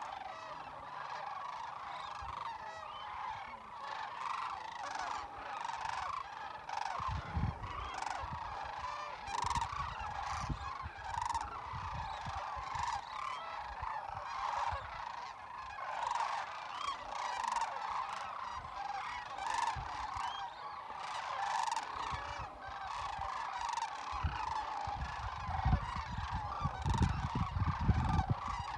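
A large flock of sandhill cranes calling all together: a dense, unbroken chorus of many overlapping calls. Low rumbles come in about seven seconds in and again near the end.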